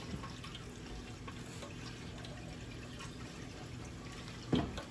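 Faint steady hum and hiss of the kitchen background, with one short knock about four and a half seconds in.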